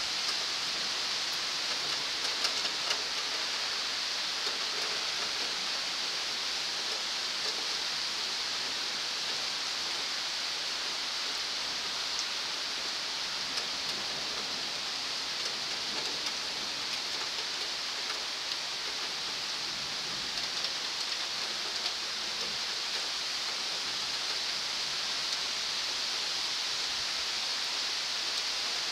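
Steady downpour of thunderstorm rain: an even hiss with occasional small ticks of drops.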